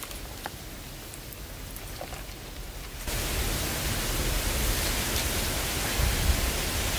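Steady outdoor hiss with a few faint ticks, getting clearly louder and fuller about three seconds in.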